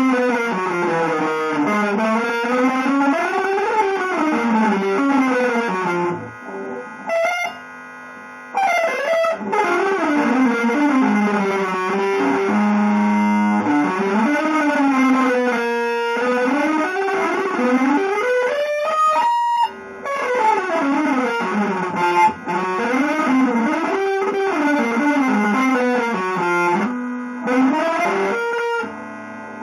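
Electric guitar run through effects, playing fast, winding lines that keep rising and falling in pitch, with a few brief drops in level.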